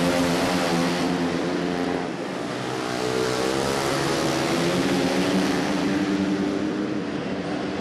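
Two Yamaha 450 four-stroke dirt-track motorcycles racing closely together, their engines revving with the pitch falling and climbing again as they go through the turn.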